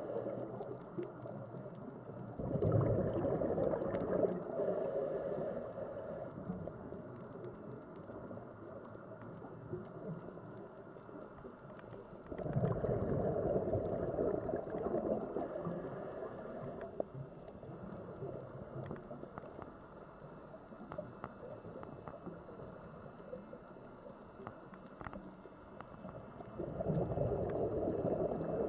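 Scuba diver's regulator breathing underwater: three bursts of bubbling from exhaled air, about twelve seconds apart, each followed by a brief higher hiss, over scattered faint clicks.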